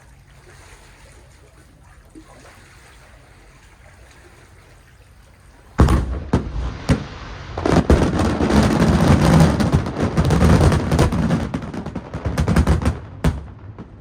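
Aerial fireworks shells exploding. After a stretch of low background hiss, the first loud bang comes about six seconds in. It builds into a dense, rapid barrage of bangs and crackles, typical of a finale, and ends with a few separate bangs near the end.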